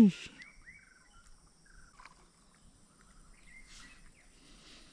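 Quiet shoreline ambience: a steady high insect drone, with a few faint short chirps in the first couple of seconds and a faint rustle near the end. A loud short call dies away right at the start.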